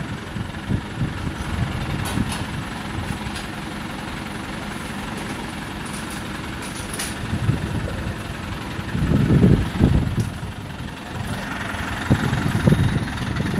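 Diesel engine of an ACE mobile crane running steadily while the crane holds a steel roof truss aloft, with a louder swell about nine seconds in.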